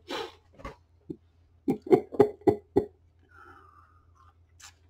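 A person takes a faint sip from a small glass, after a quick run of about five short sharp clicks or knocks a little under two seconds in. A low steady hum runs underneath.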